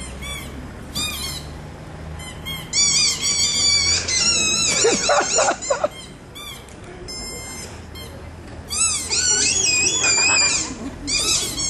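Rapid, high-pitched bird-like chirps and whistles, coming in quick clusters of arching notes.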